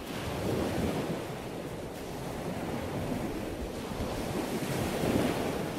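Sea water rushing and splashing along a moving boat's hull, with wind buffeting the microphone; the rush swells and eases unevenly.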